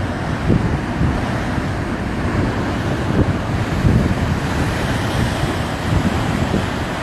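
Wind buffeting the microphone in irregular gusts over a steady rush of water.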